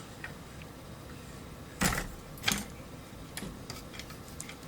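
Small tools and parts being handled on a workbench: two sharp knocks about two seconds in, half a second apart, then a few faint ticks and clicks.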